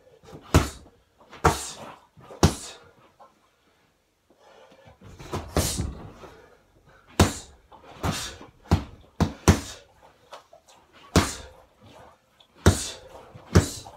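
Punches landing on a freestanding punching bag: a string of sharp thuds, some in quick succession, with a short pause about three seconds in. About five seconds in comes a longer, rougher stretch of thumping while the bag is held in a clinch.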